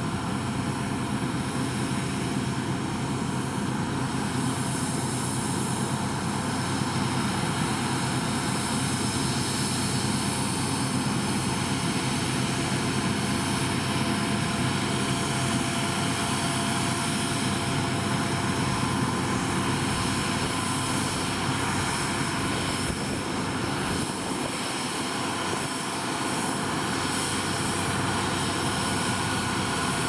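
Claas Lexion 650 combine harvester running steadily under load as it cuts barley and augers grain into a trailer, with a tractor's engine running alongside. A steady drone with a few held high whines over it.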